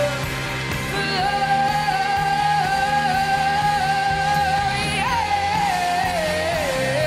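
A woman singing over a band, holding one long note from about a second in, then sliding down in pitch in steps near the end.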